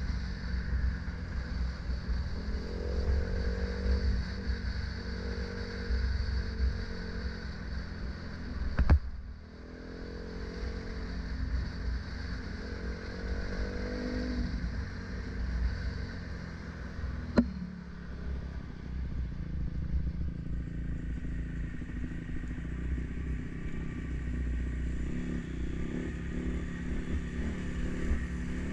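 Dirt bike engine running while the bike rides along a dirt trail, with a steady low rumble and changing engine pitch. Two sharp knocks stand out, about nine seconds in and again about eight seconds later.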